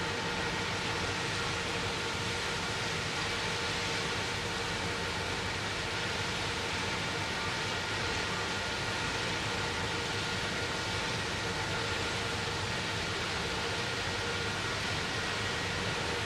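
Steady rush of wind and water with a faint, even engine drone, heard aboard a moving boat.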